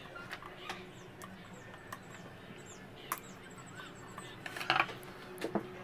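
A few sharp metal clicks and taps from screwdriver work on an industrial sewing machine's needle and presser-foot area, the loudest near the end, over faint high bird chirps.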